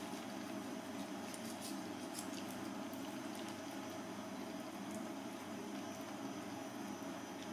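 A steady, even background hiss, with a few faint clicks and scrapes from a kitchen knife cutting raw chicken leg off the bone on a wooden board.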